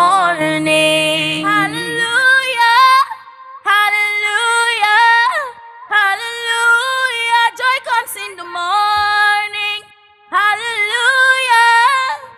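A woman singing, one voice in long, gliding phrases broken by brief pauses.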